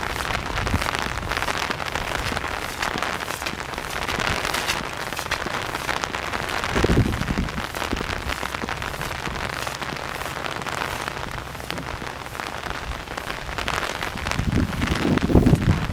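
Steady rain from a tropical storm falling and pattering on surfaces, a dense crackle of drops. Low rumbles swell about seven seconds in and again near the end.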